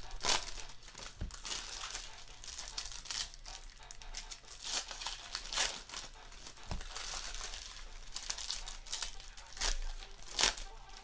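Foil trading card pack wrappers being torn open and crinkled by hand: irregular crackling rips, with a few louder tears in between.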